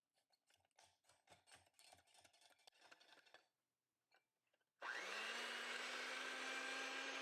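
Light clicks and taps against a bowl, then about five seconds in an electric mixer switches on. Its motor whine rises briefly in pitch and settles into a steady run.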